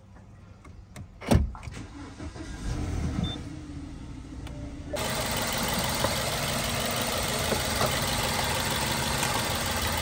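BMW petrol engine started with the push button, its first start on freshly fitted ignition coils and spark plugs: a sharp click about a second in, then the engine cranks and catches. From about halfway it idles steadily with a hiss, heard close to the engine bay.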